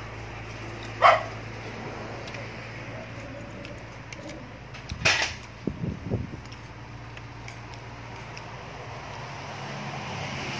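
A dog barks a couple of times, once about a second in and again about five seconds in, over a steady low hum. Light clinks of a metal spoon on a plate come in between.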